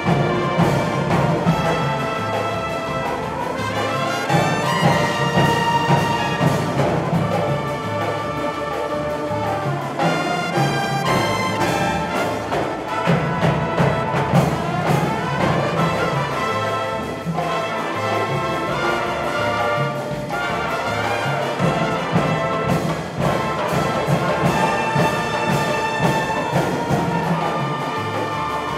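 Drum corps brass line of trumpets, mellophones, baritones and contrabass horns playing a piece in full harmony, with drums keeping time underneath.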